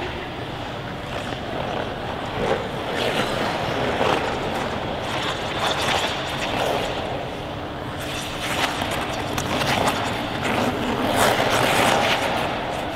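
Figure skate blades gliding and carving on ice, a continuous rushing scrape with several short, sharper scrapes as the skater pushes and turns.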